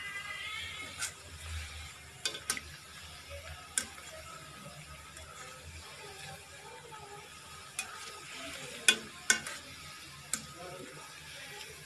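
Methi bhaji (fenugreek fritters) deep-frying in hot oil in a kadhai, a steady sizzle, with sharp clicks now and then as a wire-mesh skimmer knocks against the pan. The loudest two knocks come close together about nine seconds in.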